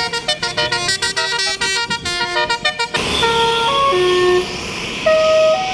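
Indonesian bus's basuri telolet horn playing a melody: a quick run of short horn notes, then from about three seconds in slower held notes at changing pitches over a steady hiss.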